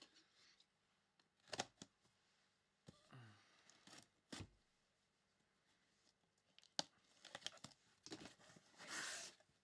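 Faint tearing and crinkling of packaging as trading card boxes and packs are opened, in short scattered rips and clicks with a longer rustle near the end.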